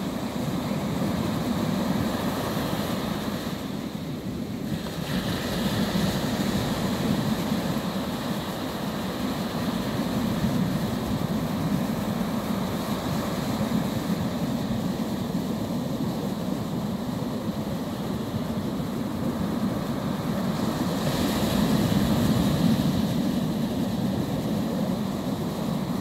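Small sea waves breaking and washing up a sandy beach: a steady surf wash that swells louder every few seconds as each wave comes in, loudest near the end.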